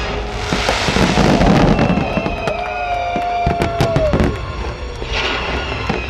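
Fireworks bursting in quick succession, sharp bangs and crackle, over the show's music soundtrack with a held tone in the middle.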